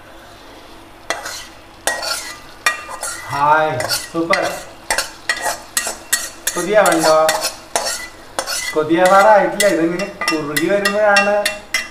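A steel spoon scraping and tapping inside an iron kadai as a fried spice mixture is scraped out into a clay pot, with many quick clinks and scrapes. Several of the scrapes squeak with a wavering pitch.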